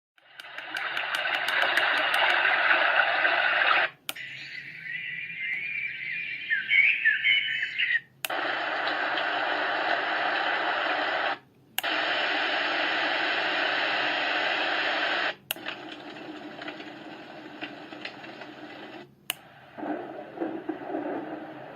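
Three Sheep S1 white noise machine playing through its small speaker, stepping through its sound programmes every three to four seconds. Each change comes with a click and a brief break. The programmes are steady hiss-like noises, one of them quieter with chirping, and a lower, deeper rushing noise near the end.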